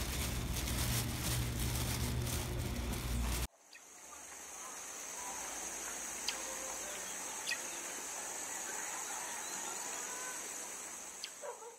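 Loud steady background noise with a low hum, which cuts off suddenly about three and a half seconds in. It gives way to a quieter ambience with a steady high-pitched whine and a few faint clicks.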